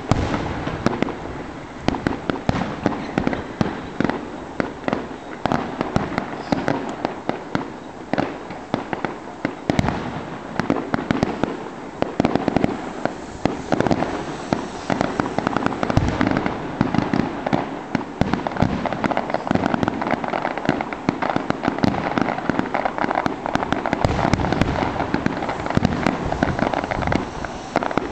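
Fireworks display: a continuous, dense barrage of sharp bangs and crackling from bursting shells, with no pause.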